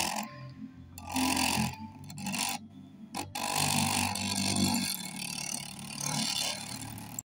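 Damaged woofer of a small RGB desktop speaker playing music with a rattling buzz, the sound dropping out briefly a few times. The woofer has just come back to life after failing.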